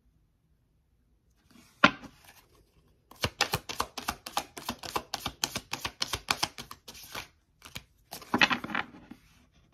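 A deck of tarot cards being shuffled by hand: one sharp tap about two seconds in, then a quick run of card flicks, about six a second, for some four seconds, and a louder rustle of the deck near the end.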